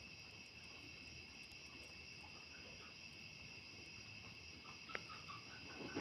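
Faint, steady chorus of crickets trilling at night, with a single sharp click about five seconds in.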